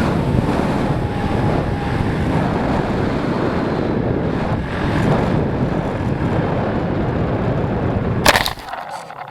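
Wind rushing hard over a small camera microphone in flight, an even roar without any motor tone. About eight seconds in a single sharp crack cuts it off, and only a much quieter rustle is left.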